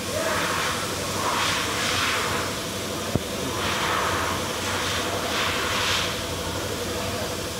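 High-pressure spray hissing in repeated bursts, roughly every second, over steady workshop noise, with one sharp click about three seconds in.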